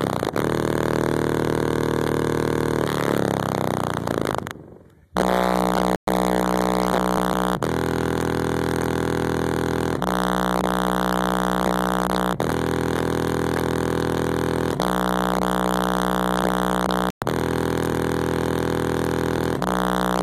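Bass music played very loud through Kicker L7 15-inch subwoofers in a car, the cones at heavy excursion. Gliding bass pitches at first, then sustained low notes that change about every two and a half seconds, with a short drop-out about four and a half seconds in.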